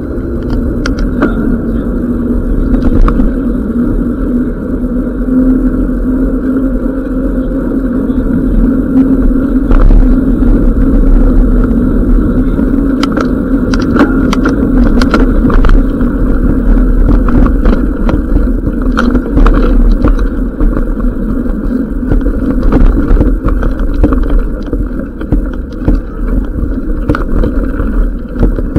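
Wind rushing over the camera microphone and mountain-bike tyres rumbling on the road during a fast descent, with scattered clicks and rattles from bumps.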